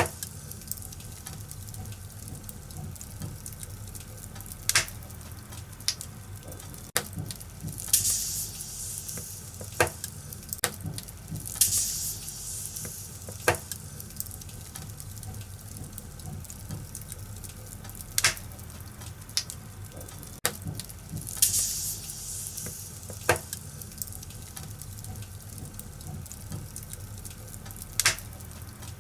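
Wood fire crackling in a fireplace: scattered sharp pops over a steady low rumble, with a few brief hissing flares.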